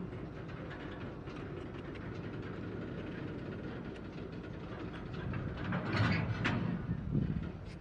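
Double-stack intermodal freight cars rolling slowly past, with a steady low rumble of wheels on rail and two sharp knocks about six seconds in.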